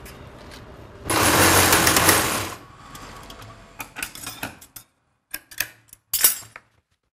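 Treadle sewing machine running in a short loud burst of stitching, then slowing into rapid rattling clicks and a few separate clacks of the mechanism before it stops.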